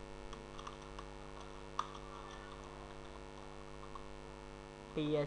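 Steady electrical mains hum on the recording, with a few faint computer keyboard clicks and one sharper click about two seconds in.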